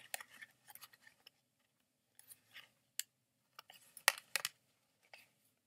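A handmade paper journal being untied and unfolded: scattered paper rustles and light taps, with two sharp clicks close together about four seconds in.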